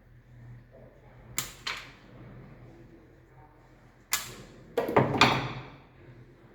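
Hand-tool work on earth cable terminations: a few sharp clicks, then a louder scraping, rattling clatter of metal and cable being worked about two-thirds of the way through.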